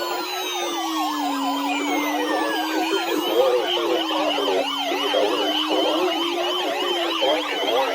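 Several electronic sirens sounding at once: a slow, low wail rising and falling, a fast warbling yelp above it, and higher tones that repeatedly sweep downward.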